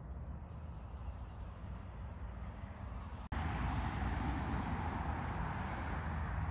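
Steady outdoor background noise with a low rumble. After a cut about three seconds in, it becomes louder and hissier.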